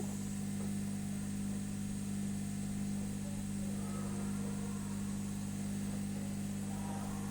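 Hot-air rework gun running: a steady low electrical hum with a faint hiss of blowing air, unchanging throughout.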